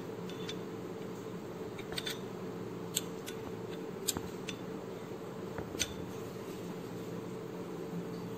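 A metal spoon clinking lightly against a ceramic bowl a few times as it stirs through liquid, over a steady low background hum.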